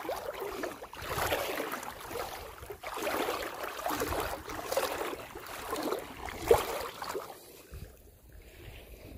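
Shallow lake water swishing and splashing around legs as someone wades, in surges about once a second. A sharper splash comes about two-thirds of the way through, and the sound falls much quieter near the end.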